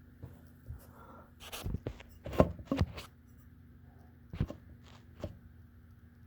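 Hampton Bay Huntington III ceiling fan motor humming steadily, with a run of sharp knocks and clicks near the middle and two more later on.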